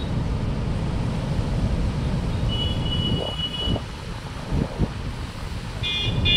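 Steady low roar of floodwater pouring through the many open crest gates of a large masonry dam's spillway, with wind buffeting the microphone. Brief high tones sound about three seconds in and again near the end.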